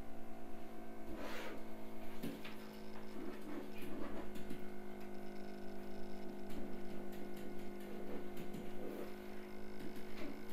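Steady low hum with faint, irregular ticks and scratches of a stylus writing on a pen tablet.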